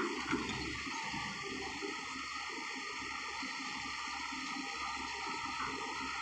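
Heavy earthmoving machinery, excavators and bulldozers, running with a steady rushing noise, with a couple of short knocks just after the start.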